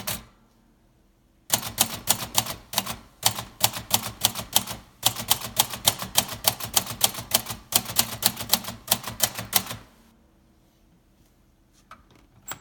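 1953 Royal Quiet De Luxe portable manual typewriter being typed on: quick runs of sharp key and typebar strikes, about five a second with short pauses. One strike comes right at the start, the typing picks up about a second and a half in, and it stops near ten seconds.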